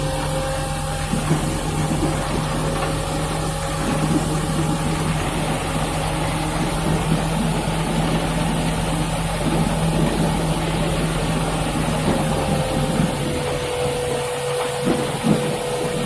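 Concrete mixer truck's diesel engine running steadily with a constant hum while the drum discharges, and wet concrete sliding down the chute and splashing into the pit.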